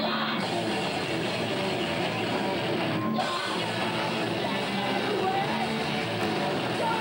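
Rock band playing live, with guitars, at a steady loud level.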